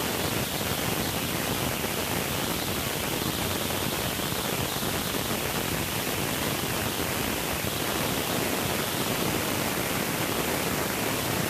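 Steady, even hiss like static, unchanging throughout, with no separate sound standing out above it.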